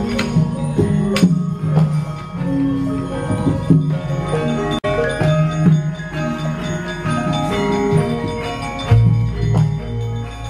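Javanese gamelan playing: many ringing struck metallophone notes over a low pulse, with a few sharp clacks. A deep low tone enters about nine seconds in.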